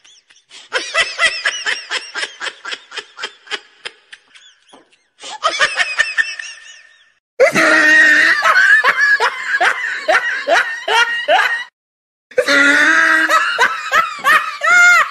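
Laughter clips cut together: a run of quick, rhythmic laughing that fades out, then several louder bursts of hearty laughter, separated by short silences where the clips cut off abruptly.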